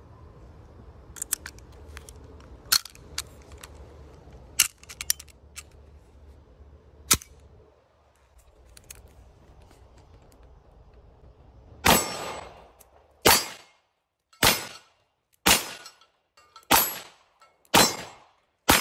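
Mauser C96 broomhandle pistol: metallic clicks and clacks as it is loaded from a stripper clip, then after a pause seven shots fired about a second apart.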